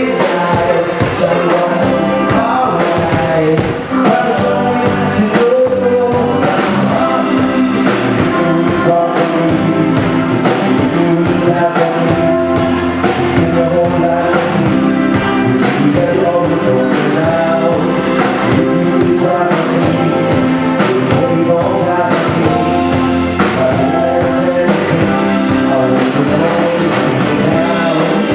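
Live band playing a song with a lead singer, guitar and drums.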